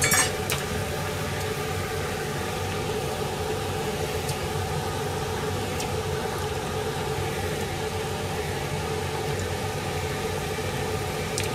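Steady hum of a small fan motor running in a home kitchen. A few light clicks of a metal ladle and bowl against the pan come as chopped vegetables are tipped in, sharpest right at the start and then faint and scattered.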